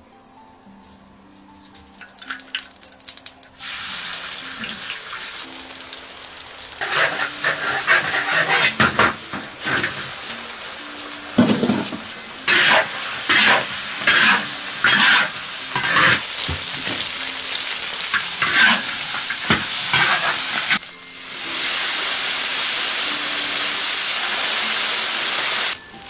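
Meat stir-frying in hot oil in a large iron wok: a steady sizzle with a metal spatula scraping and tossing in repeated strokes. Near the end a louder, even sizzle takes over as liquid goes into the hot wok.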